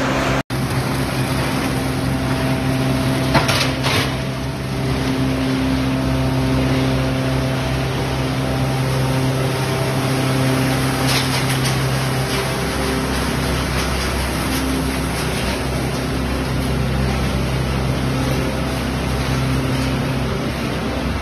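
Wood hammer mill plant running: a steady mechanical din with a constant low drone, and a few sharp knocks about three to four seconds in and again near eleven seconds. The sound drops out for an instant just after the start.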